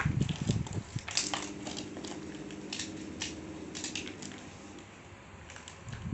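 Plastic packaging crinkling and crackling in short bursts as a parcel is handled and unwrapped. A low steady hum runs under it for a few seconds in the middle.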